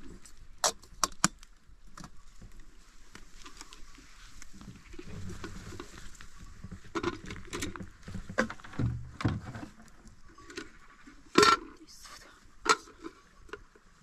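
Irregular sharp clicks and knocks, about seven of them, the loudest one about eleven seconds in. Faint voices murmur between them.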